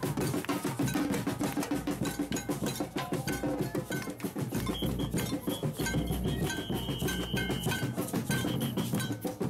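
Samba-style percussion group playing: surdo bass drums struck with felt mallets under a fast, continuous pattern of drum strokes, with short repeated bright metallic or whistle-like notes over the top.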